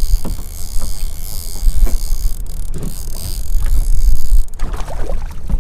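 Wind rumbling on the microphone aboard a small boat at sea, with water sloshing against the hull. The water noise turns busier and louder near the end.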